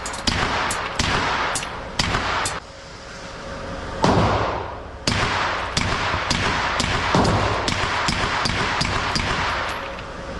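Gunshots at a shooting range: a steady string of sharp reports, roughly two a second, each with a ringing tail. Several louder, deeper shots stand out among them, one about four seconds in and another about seven seconds in.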